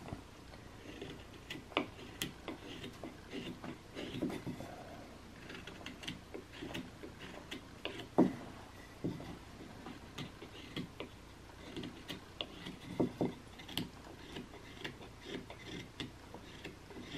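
A small carving knife whittling a basswood blank by hand: a run of short, uneven slicing cuts and little clicks as chips come off. The cuts are sharper around two seconds in, near eight seconds and around thirteen seconds.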